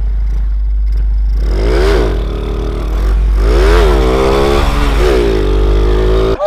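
Small underbone motorcycle engine fitted with a Supra 125 carburettor, revved hard twice in first gear for a wheelie attempt: the pitch climbs and drops back each time, then holds steady. Heavy wind buffeting on the microphone, and the sound cuts off suddenly at the very end.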